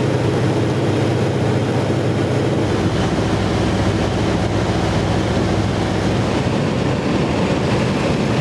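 Aircraft engines running in a steady, loud drone with a low hum; a deeper rumble joins about two and a half seconds in.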